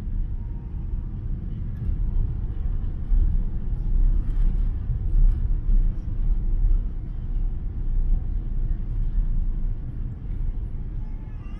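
Steady low rumble inside an airliner cabin in flight: engine and airflow noise.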